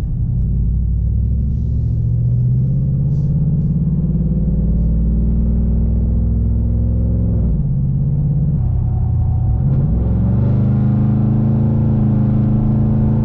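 A 2018 Chevrolet Silverado 1500's V8 with its stock intake and true dual exhaust, heard from inside the cab while driving: a low, steady drone. Its pitch falls about seven and a half seconds in, dips again near ten seconds and climbs back. From the cab the engine itself is nearly silent, and the drone carries no intake noise.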